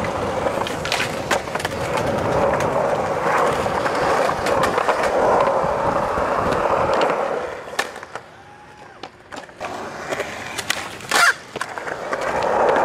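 Skateboard wheels rolling over concrete, a steady gritty rumble with a hum, easing off about eight seconds in. A few light clicks follow, then one loud, sharp clack of the board a little after eleven seconds, and the rolling picks up again near the end.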